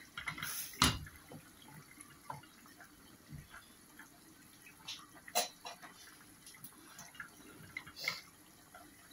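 A spatula stirring a steaming curry in a stainless steel pot, with soft bubbling and wet stirring sounds and a few sharp knocks of the spatula against the pot, the loudest about a second in.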